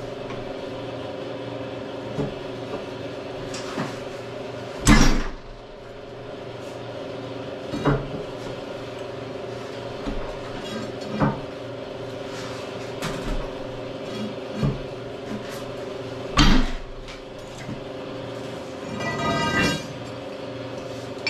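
Steel pry bars clanking and knocking against steel plates and the base of a heavy milling machine as it is levered along, with scattered sharp clanks, the loudest about five and sixteen seconds in, and a ringing metal clatter near the end. A steady hum runs underneath.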